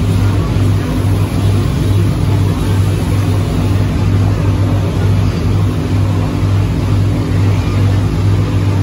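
Fire boat's engines running steadily underway, a low throb pulsing about twice a second over a steady rushing noise, heard from inside the boat's cabin.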